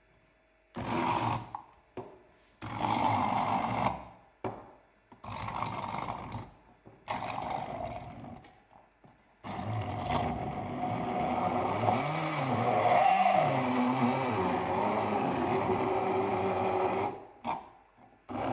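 Hand-held immersion blender chopping peeled tangerine segments in a glass jug. It runs in short pulses of about a second each for the first several seconds, then runs continuously, its motor pitch dipping and rising as the blades catch the fruit, and it stops briefly near the end.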